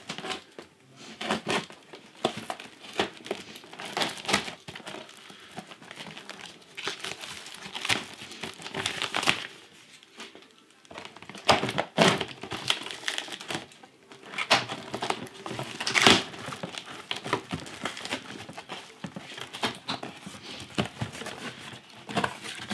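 Packing tape and plastic stretch wrap on a cardboard shipping box being slit with a key and torn open, then the cardboard flaps pulled back. Irregular rips, crinkles and rustles, with the loudest rips in the middle.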